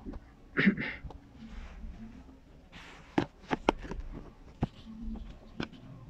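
A brief breath or short vocal noise, then a soft breath, then about six sharp clicks at irregular spacing over a couple of seconds.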